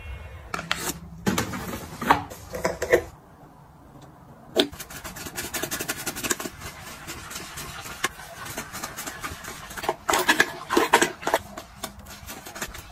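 Toilet brush bristles scrubbing a ceramic toilet bowl in quick, irregular strokes, with a flurry of louder strokes near the end. A few sharp knocks come in the first three seconds.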